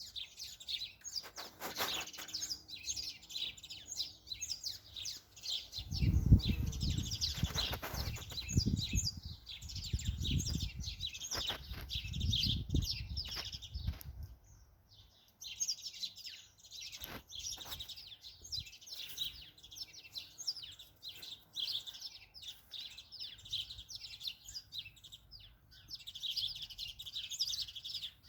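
Many small birds chirping busily and continuously, with gusts of wind rumbling on the microphone from about six to fourteen seconds in.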